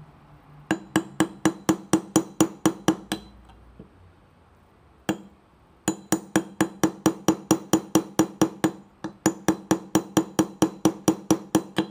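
Small brass hammer tapping a steel pin punch in quick, even strikes, about four or five a second, each with a short metallic ring, driving a roll pin into a Sig P228/M11A1 pistol slide to seat the extractor. There are three runs of taps, with a single strike and a short pause between the first and second.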